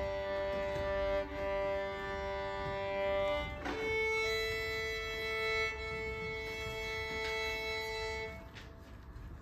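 Violin bowing long double stops on its open strings, a lower pair of notes and then, about four seconds in, a higher pair, each held steady: the violin being tuned in fifths. The sound stops about a second before the end.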